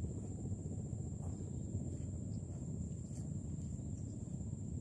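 A steady high-pitched insect drone, like crickets, holding one tone, over a continuous low rumbling noise.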